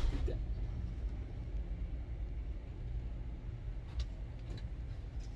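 Steady low rumble and hum of a cruise ship's machinery and ventilation inside a crew cabin, with a light tap about four seconds in.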